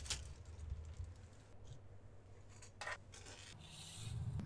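Stack of plastic model-kit runners rattling and scraping as it is handled and lifted off a wooden desk, with a sharper plastic clack about three seconds in.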